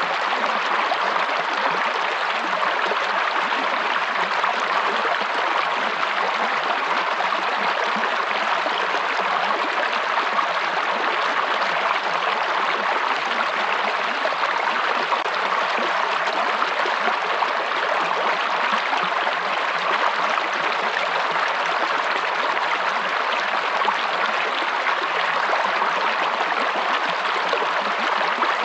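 Steady flowing water of a stream, running evenly without a break.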